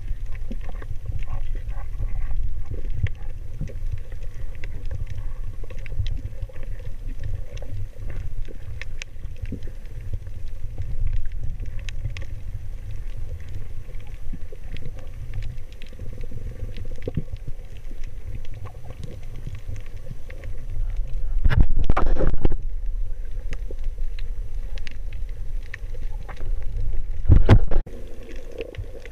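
Underwater sound picked up by a hand-held camera in its waterproof housing: a steady low, muffled rumble of moving water with scattered faint crackling clicks. Two louder whooshing surges rise about two-thirds of the way through and again near the end, the second cutting off sharply.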